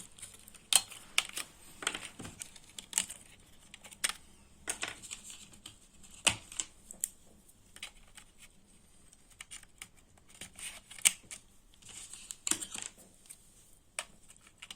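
Scattered small clicks and taps of hands working inside an open laptop while its RAM module is swapped, coming irregularly with a few sharper clicks among them.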